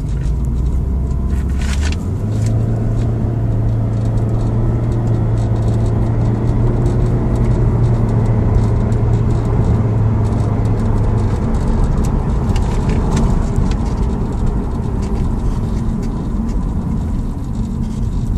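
2008 Audi A6 being driven on a road test, with steady engine and road noise; a low hum steps up in pitch about two seconds in, holds, then gives way to a broader rumble. The car is running smoothly without misfire or vibration now that the cylinder 3 ignition fault has been fixed.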